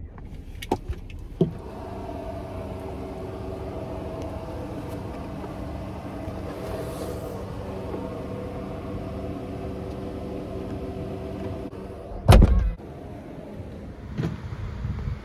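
A car's engine running with a steady hum, heard from inside, with a couple of clicks near the start and one loud thump about twelve seconds in.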